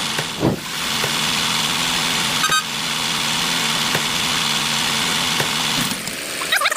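Steady hum of a small motor, with a thump about half a second in and a sharp click near the middle; the hum stops about six seconds in.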